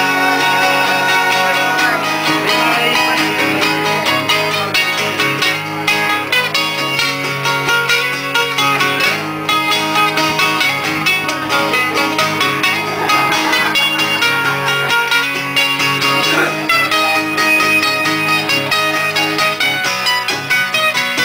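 Acoustic guitar strummed in a steady rhythm while a second small string instrument picks quick lead notes over it: an instrumental passage with no singing.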